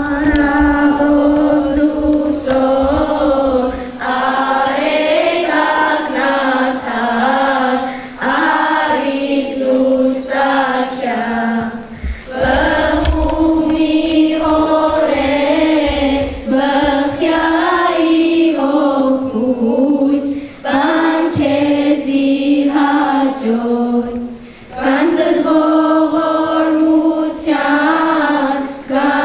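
A choir singing a melody in unison, in phrases a few seconds long with short breaks between them.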